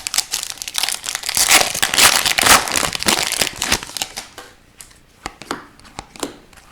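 Foil wrapper of a hockey card pack being torn open and crinkled, followed by a few light clicks as the cards are handled.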